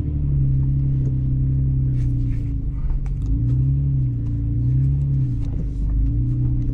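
Toyota FJ Cruiser's 4.0-litre V6 engine running at low revs while crawling over rough trail, its pitch rising and falling several times with small throttle changes. Scattered small knocks and clicks come through in the middle.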